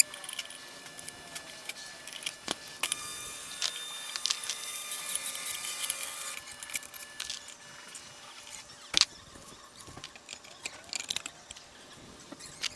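Light metallic clinks and knocks of steel clutch parts, a pressure plate and flywheel, being handled on a gearbox. A quick run of small clinks comes in the middle, and there is one sharper knock near the end.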